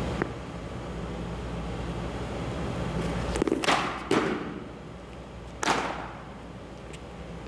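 A pitched softball thuds into or near the catcher's mitt, with a cluster of sharp thuds just before four seconds in and another loud thud near six seconds, over a steady low hum.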